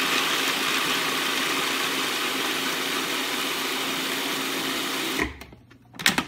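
Countertop food processor motor running steadily, its blade chopping basil, Parmesan, pine nuts and garlic into a thick pesto; the motor cuts off about five seconds in, and a short click follows.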